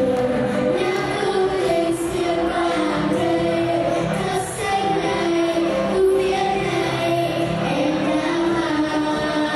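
A group of girls singing a lively spring song into microphones over a full music accompaniment, the melody moving in held notes without a break.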